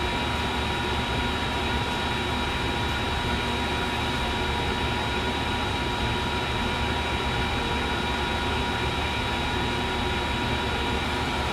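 Steady fan-like whir with faint high, steady whining tones over it, unchanging throughout.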